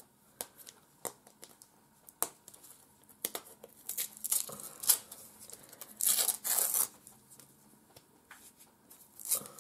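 Gift wrapping being torn open and crinkled by hand: scattered small clicks and rustles, with longer, louder rips about four and six seconds in.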